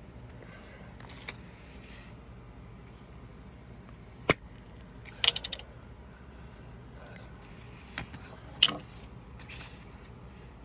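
A paper card and journal pages being handled: soft rustling with a few sharp clicks and taps, the loudest about four seconds in and again near the end, and a quick run of ticks in between.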